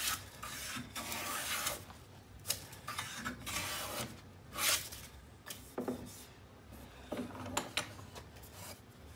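Lie-Nielsen No. 62 low angle jack plane taking shavings off the edge of a board in a vise, several long scraping strokes over the first five seconds. After that come a few short knocks and quieter handling.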